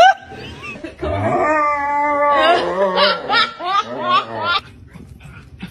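German Shepherd vocalizing in a tantrum over bath time: from about a second in, a long wavering whining moan, then a quick run of shorter rising whines and yelps that stops just before the end. It opens with a brief, loud rising yip.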